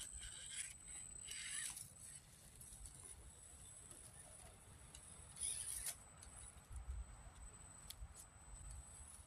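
A Traxxas TRX-4M 1/18-scale RC crawler picking its way over tree roots and moss. There are three brief bursts of scrabbling and rustling from its tyres and body, the loudest about five and a half seconds in, over a faint steady high whine.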